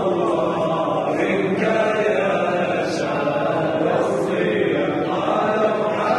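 A male muezzin chanting a Ramadan farewell (wada') chant into a hand-held microphone, his amplified voice carrying on unbroken in long, drawn-out phrases.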